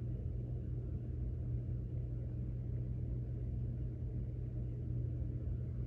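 A steady low hum with a rumble beneath it, even from start to finish, with no music or voice.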